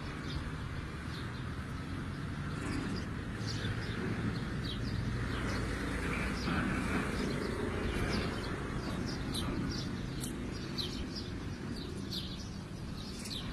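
Small birds chirping, many short high calls over and over, above a steady low rumble of outdoor noise.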